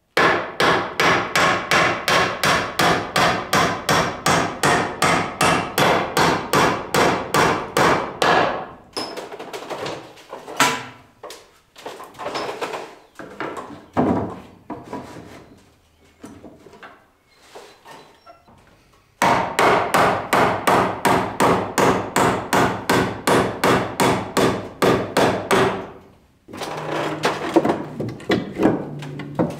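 A hammer striking wooden wall boards in two long runs of quick, even blows, about three or four a second. Scattered lighter knocks fall in the pause between the runs.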